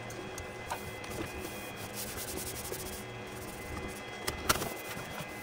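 Hands rubbing and pressing a thin magnetic adhesive sheet flat on a 3D printer bed to push out an air bubble: soft, low rubbing with faint ticks and a couple of sharper clicks about four and a half seconds in.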